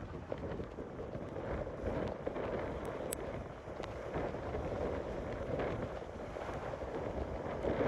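Storm wind buffeting the microphone over the steady rush of surf breaking against the pier's seawall.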